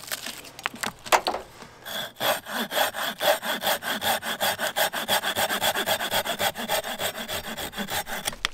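Cheap red-handled Stedi folding pocket saw cutting through a small birch branch. A few light taps as the blade settles, then from about two seconds in quick, even back-and-forth strokes, around six a second.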